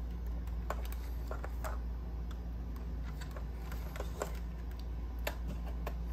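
Scattered light clicks and taps of fingers handling a plastic-and-metal scale model car, working at its hinged bonnet, over a steady low hum.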